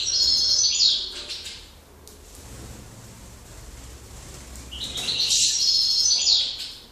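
European goldfinch song: two bursts of rapid, bright twittering, the first at the start and the second about five seconds in, with quieter chirps between.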